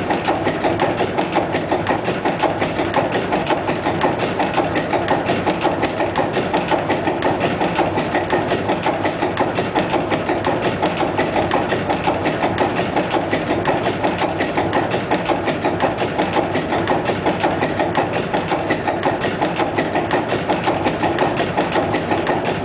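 Deutsche Werke six-cylinder, 196 hp engine with open valve gear, running steadily with an even, rhythmic beat and mechanical tapping.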